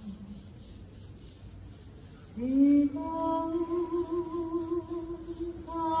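Live singing of a slow song: after a lull of about two seconds, a singer's voice scoops upward into a long held note with vibrato, then moves to a new note near the end.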